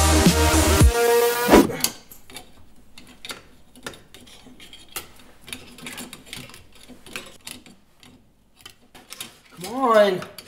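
Music cuts off about two seconds in. Then come irregular light clicks and clinks of metal kitchen knife blades knocking against each other and a cooking pot. Just before the end there is a strained, voiced grunt.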